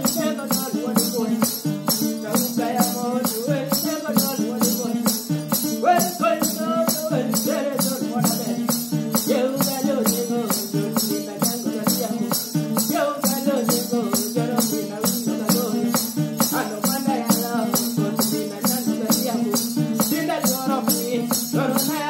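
Nyatiti lyre plucked in a repeating rhythmic pattern, with a steady rattling beat about twice a second kept by the player's foot and a man singing over it.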